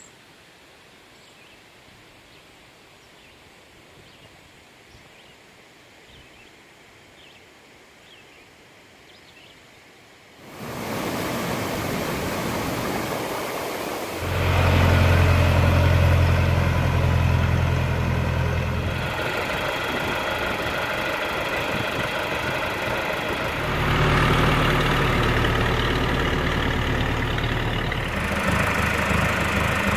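Quiet outdoor background for about ten seconds, then a small engine, plausibly a Cub Cadet riding mower's, comes in loudly and runs steadily. Its low hum gets stronger about four seconds later and again a little over halfway through.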